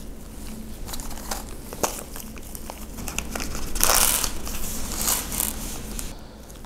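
A small clear plastic parts bag crinkling as nitrile-gloved hands dig into it, in a run of crackly rustles that are loudest about four seconds in. A few light clicks come in the first two seconds.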